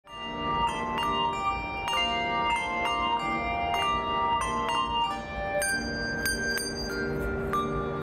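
A handbell choir playing a piece: tuned handbells struck in quick succession, several notes at a time, each note ringing on under the next.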